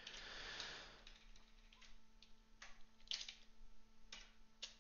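Near silence with a few faint, scattered computer keyboard keystrokes, isolated taps a fraction of a second to a second apart, over a faint steady hum.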